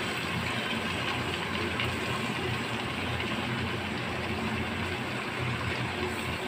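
Steady low hum with a hiss over it from the stove and the pot of keema and spinach cooking on it.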